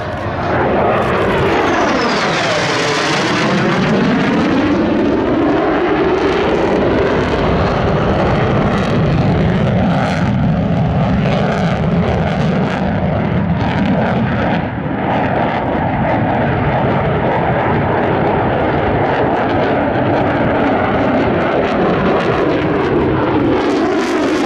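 F-35A Lightning II's single Pratt & Whitney F135 turbofan, loud and steady as the jet flies its demonstration manoeuvres. A swirling sweep runs down and back up in pitch in the first few seconds as it passes, and again near the end.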